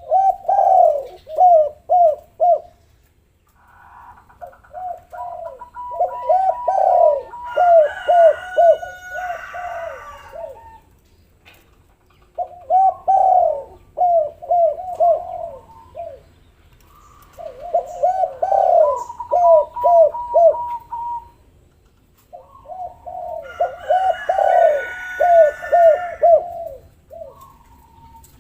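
Spotted doves cooing in five repeated bouts of rhythmic coo notes, two voices overlapping at different pitches. Small birds chirp briefly during two of the bouts.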